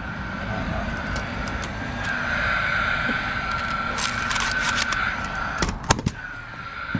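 Paslode cordless nail gun firing nails into a plywood valley board: two sharp shots close together about five and a half seconds in and another right at the end, over a steady high whine.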